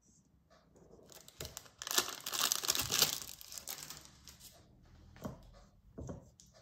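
Paper crinkling as cubed butter is tipped off its paper wrapper into a steel bowl of flour, loudest about two seconds in. Near the end come two soft knocks as hands start working the butter into the flour.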